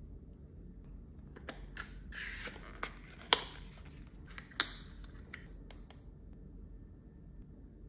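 Cosmetic packaging handled close up: a cardboard box being opened, with a brief rustle and scrape, and several sharp clicks and taps of plastic makeup pots. The loudest clicks come a little past three seconds and just before five seconds.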